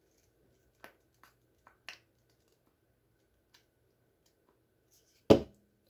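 Faint soft clicks of a Pantene hair-oil pump bottle being pumped into a palm, then one sharp knock near the end, the loudest sound.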